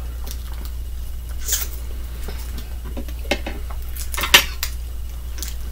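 Table eating sounds: scattered clicks and clinks of shells and dishes as seafood is picked apart by hand, the loudest click about four seconds in, over a steady low hum.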